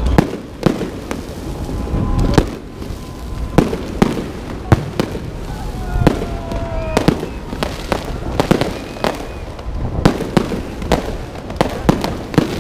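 Fireworks salute: a rapid, irregular run of sharp bangs and crackles from bursting aerial shells, several a second, with a few faint gliding whistles among them.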